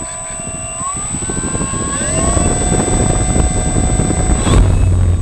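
A model airplane's motor and propeller spin up, heard from a camera right behind the propeller. A whine steps up in pitch about one and two seconds in. Near the end it gives way to a loud rush of propeller wash as the power comes up.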